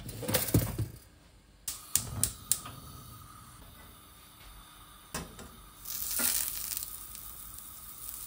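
Kitchen clatter: a handful of sharp clinks and knocks of dishes and utensils being handled, with a short burst of noise about six seconds in.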